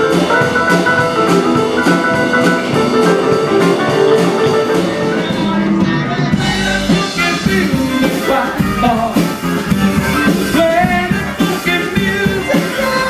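Rock band music: a drum kit keeps a steady beat under layered instruments, with pitch-bending melodic lines in the second half. The cymbals drop out briefly about six seconds in.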